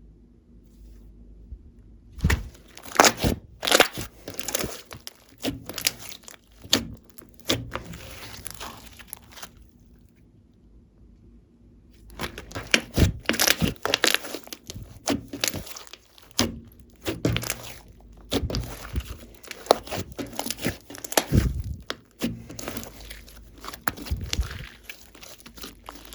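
Hands squishing and stretching glossy slime, making rapid sticky clicks and crackling pops. They start about two seconds in and pause briefly near the middle.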